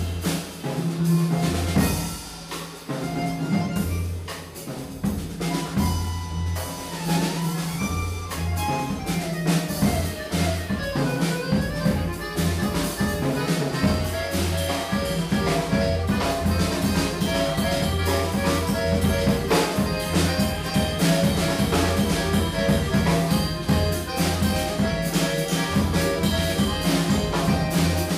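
Live improvised music from an accordion, upright double bass and drum kit trio: bass notes, sustained accordion lines and busy drumming. It thins out for a few seconds near the start, then builds and stays full.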